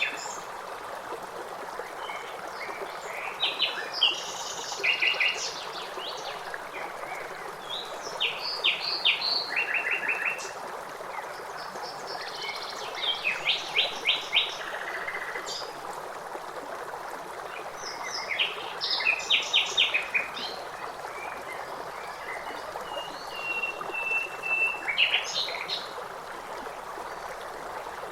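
Songbirds singing in short phrases of rapid, repeated high notes every few seconds, with one long steady whistle near the end. Under them is a continuous rush of running water.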